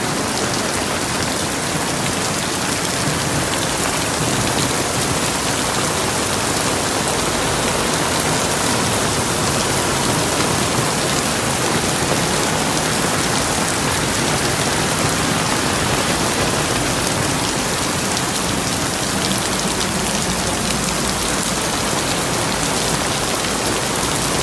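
Heavy rain pouring onto a waterlogged street and pavement: a loud, steady hiss of downpour.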